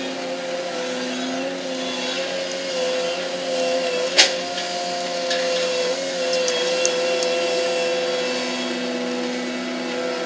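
Steady whining drone of a grab-crane gravel ship's deck machinery as the crane slews and hoists its clamshell grab, sped up, with one sharp clank about four seconds in.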